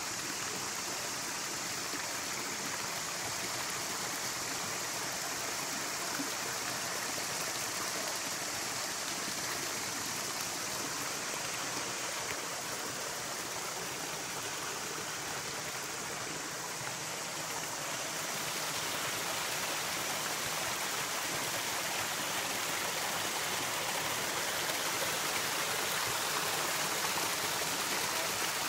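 A stream running over rocks and small cascades: a steady rushing and splashing of water.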